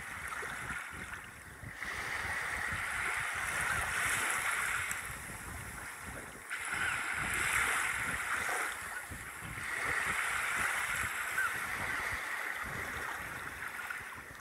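Sea surf washing up a sandy beach, the hiss of the wash swelling and fading every few seconds, with wind buffeting the microphone.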